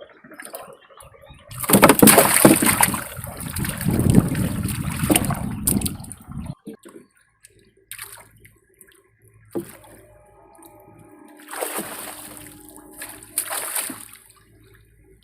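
Water splashing and sloshing in two loud spells, the first lasting about five seconds, the second shorter and near the end.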